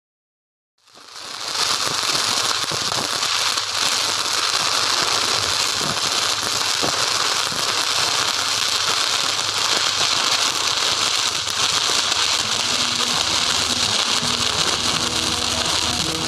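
MMA (stick) welding arc crackling steadily as the electrode burns, with scattered pops, fading in about a second in. Music begins faintly near the end.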